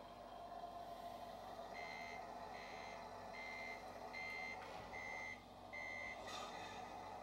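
RC truck sound module playing a reversing-alarm beeper: six even beeps, a little more than one a second, starting about two seconds in, over a steady engine hum.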